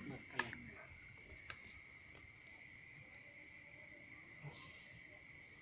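Night insects chirring steadily: a high pulsing trill over a constant shrill hum. A single sharp click comes about half a second in.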